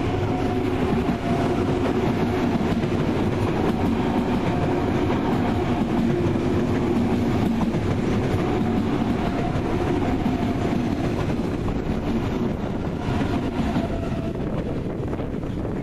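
Trains running on the station tracks: a steady rumble with wheel clatter and a humming tone that holds through most of the sound and fades near the end.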